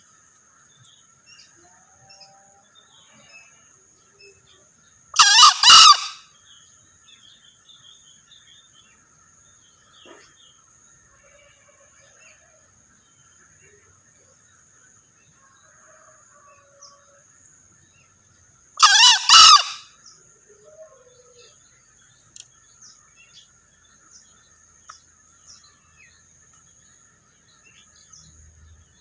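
Male green junglefowl crowing twice, about 13 seconds apart. Each crow is a short, loud call under a second long with two quick parts. A steady high-pitched insect drone and faint chirps run underneath.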